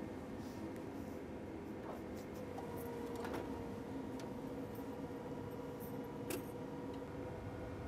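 Colour digital press mechanism running: a low steady hum with a few faint ticks and clicks.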